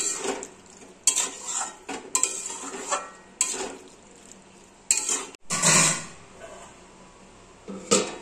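A cooking spoon stirring curry in a pan, scraping and clinking against the pan in about eight separate strokes, with a longer scrape near the middle.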